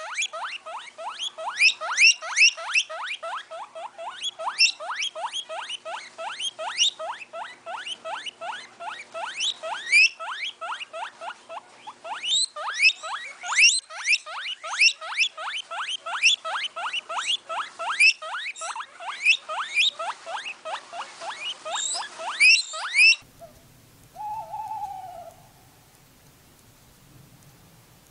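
An animal's call: a long, fast series of high rising chirps, about four a second, that cuts off about 23 seconds in. Near the end a different short falling call sounds twice.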